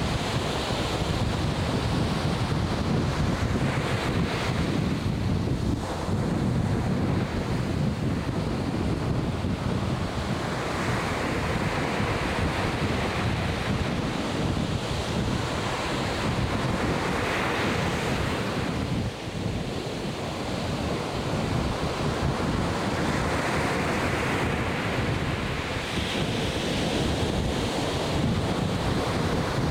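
Atlantic Ocean surf washing and breaking, with several swells of hiss as waves come in, over wind buffeting the microphone with a low rumble.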